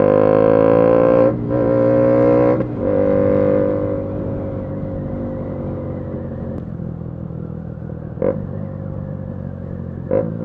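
KTM Duke 200's single-cylinder engine pulling hard under acceleration, with two brief breaks in its note about one and a half and two and a half seconds in as it shifts up. It then settles into a steadier, quieter cruise. Two short sharp knocks come near the end.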